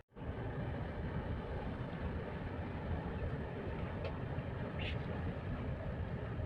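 Steady low rumble of a passenger ship's engines and wash, with two short faint hisses about four and five seconds in.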